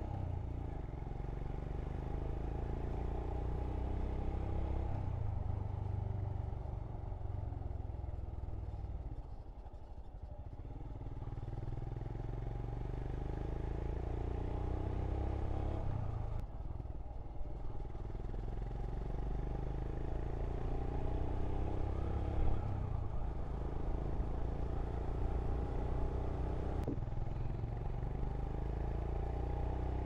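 Royal Enfield Scram 411's single-cylinder engine under way, heard from the rider's position: its pitch rises as it pulls and drops back several times, easing off briefly about ten seconds in before picking up again.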